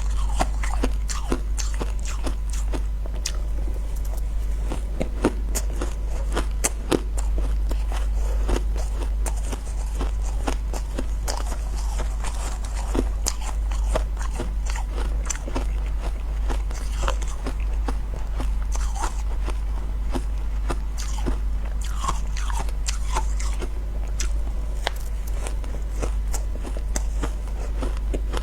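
Close-up crunching and chewing of ice, many sharp bites and crunches in a quick, uneven run, over a steady low hum.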